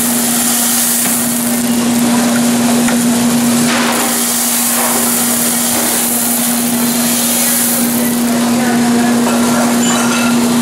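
Coffee roaster's cooling tray running: a steady low motor hum and fan air under the rattle of freshly roasted beans swept round the perforated tray by the stirring arms and spilling down the chute into a bin.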